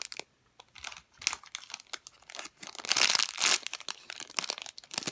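Plastic packaging crinkling in the hands in irregular bursts, loudest about three seconds in.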